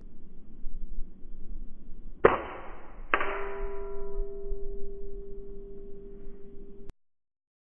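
An air rifle shot followed, under a second later, by the pellet striking a metal target. The target rings with a steady tone that slowly fades, and the sound cuts off abruptly near the end.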